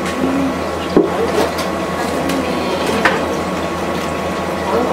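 A steady low hum with a few light taps and knocks from hands working rice and nori at a sushi counter.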